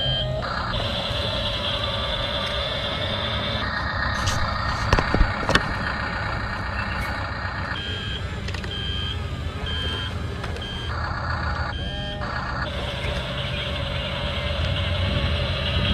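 An RC construction machine's electronic sound effects: a simulated engine sound with reversing beeps, about three beeps every two seconds, at the start and again in the second half. Two sharp knocks come about five seconds in.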